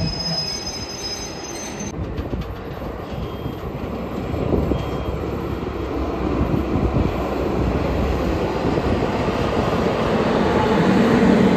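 Train wheels squealing, with high steady tones, for about the first two seconds, cut off suddenly. Then comes a steady rumble of a diesel locomotive hauling passenger coaches, its engine and rolling wheels growing louder toward the end.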